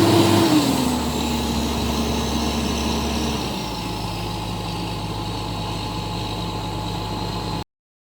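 Komatsu PC200-8 excavator's six-cylinder diesel engine running, its speed dropping in two steps, about half a second in and again after about three and a half seconds, to a lower steady idle. The sound cuts off suddenly near the end.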